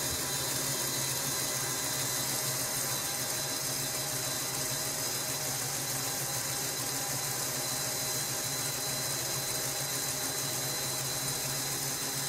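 Steady whirr of a Meccano model crawler tractor's electric motor and gear train running at raised revs, driving the cord winch that lifts the scraper blade.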